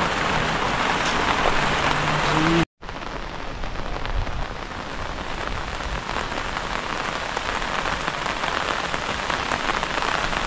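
Steady rain falling. A brief dropout comes a little under three seconds in, and after it the rain goes on somewhat softer.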